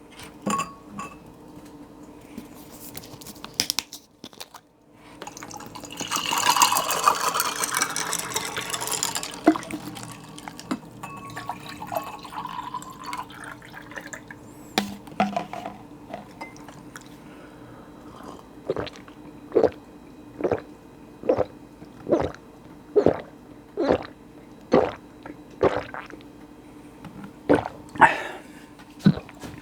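Black barley tea poured from a bottle, a few seconds of rushing liquid that rises in pitch as the cup fills. Later a steady run of about a dozen gulps, roughly one a second, as it is drunk.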